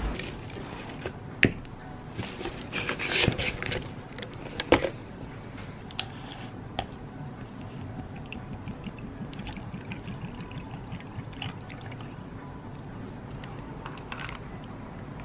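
Several sharp clicks and knocks in the first few seconds, then milk poured from a bottle over ice cubes in a clear plastic cup.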